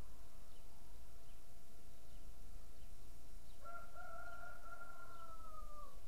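A rooster crowing once: a single long call of a little over two seconds, starting past halfway through and dropping in pitch at the end.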